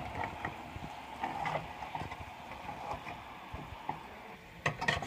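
Saucepan of tomatoes and zucchini cooking on the stove: a low hiss of simmering with scattered small knocks. Near the end come a couple of sharp clanks of cookware.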